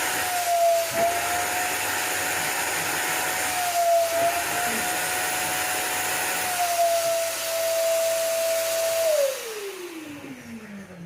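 VEVOR wet vacuum cleaner running with a steady whine over a rush of suction as its small upholstery tool draws water out of a fabric couch; the whine dips briefly twice. About nine seconds in the motor winds down, its whine gliding steadily lower as the rush fades.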